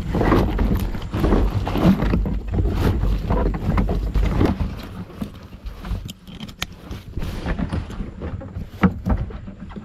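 Water splashing and sloshing around a kayak, with wind buffeting the microphone. The splashing is heavier for the first few seconds, then eases, with a few sharp knocks in the second half.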